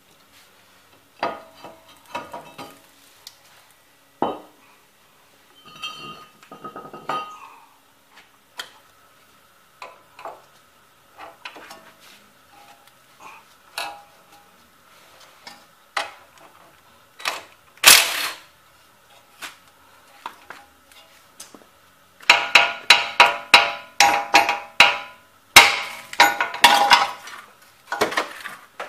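Steel hand tools clinking and knocking on the front suspension of a 1995 Toyota Camry, with one louder strike partway through. From about three quarters of the way in, a hammer strikes the steel steering knuckle several times a second, each blow ringing, as the lower ball joint is knocked loose.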